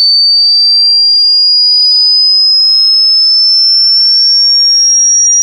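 A loud, pure electronic test tone sweeping slowly upward in pitch, from about 4,600 Hz to nearly 6,000 Hz: a single high whistle-like tone rising steadily.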